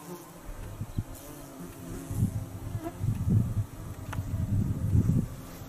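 Flying insects buzzing close by. A low, gusty rumble grows stronger from about two seconds in.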